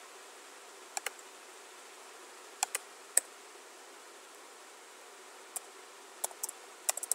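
Scattered clicks of a computer mouse and keyboard, with a quick run of keystrokes near the end as a search word is typed, over a steady faint hiss.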